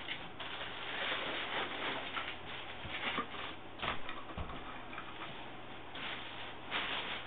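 Plastic protein-skimmer parts being handled and set down: irregular light clicks and knocks with rustling, a few sharper knocks near the middle.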